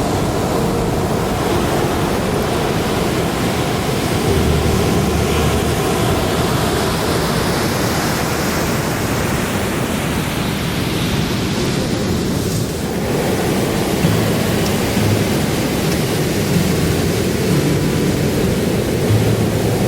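Ocean surf washing onto the shore with wind buffeting the microphone, a steady roar of noise.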